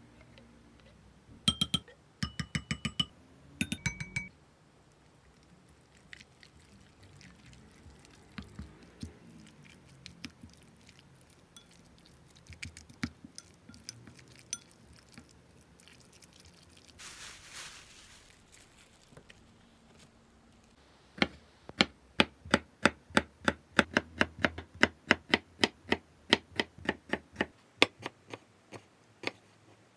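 A kitchen knife chopping yellow pickled radish on a wooden cutting board: quick even knocks, about three a second, starting a little past the middle and pausing briefly near the end. Before that come a few ringing metal clinks of chopsticks against an open tuna tin, then the faint scrape of utensils stirring tuna and mayonnaise in a ceramic bowl.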